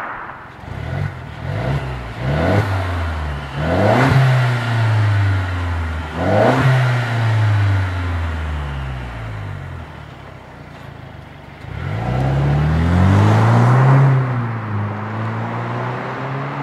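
Mercedes-Benz W207 E250 CGI's turbocharged four-cylinder, heard through an MEC Design aftermarket exhaust in its Daytona sound setting. It is revved while standing still, with several quick blips and then a longer rev, and settles to a low running note. About twelve seconds in it pulls away, rising in pitch and fading as the car drives off.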